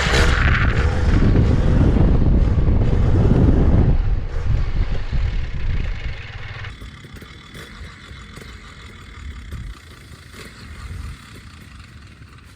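Polini Thor paramotor two-stroke engine running loud, then falling away about four seconds in to a much quieter low level for the rest of the time.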